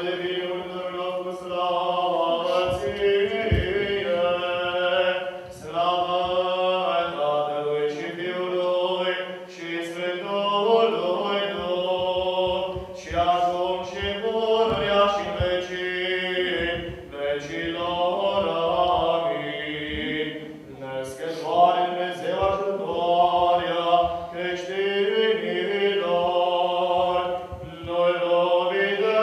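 Unaccompanied Orthodox liturgical chanting, sung in long held phrases several seconds each with brief breaks between them.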